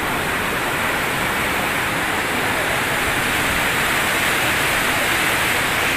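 Swollen floodwater rushing over a weir and through rocks: a steady, loud noise of churning water.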